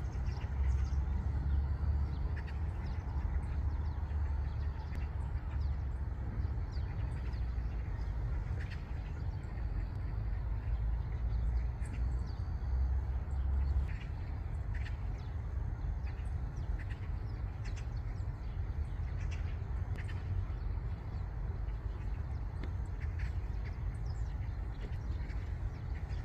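Eurasian tree sparrows feeding in a flock, giving scattered short, high chirps over a steady low rumble that eases about halfway through.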